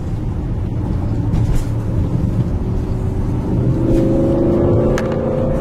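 Car engine and road noise heard from inside the cabin of a fast-running car: a steady low drone, with the engine note rising in pitch as it accelerates from about three and a half seconds in. A single sharp click about five seconds in.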